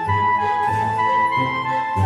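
Instrumental background music: a held melody line over a bass line that changes notes about every half second.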